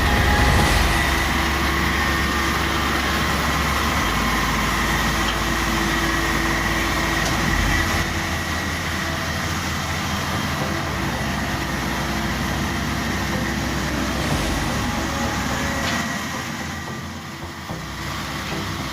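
Maxxi Bimo Evo 102 L combine harvester running steadily: an engine rumble with a steady high whine over it. The low rumble shifts about four and eight seconds in, and the sound eases off somewhat near the end.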